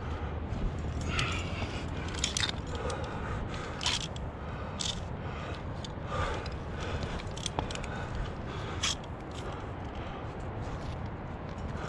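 Irregular scuffs and scrapes of a rock climber's gloved hands and climbing shoes moving on granite, over a steady low rumble.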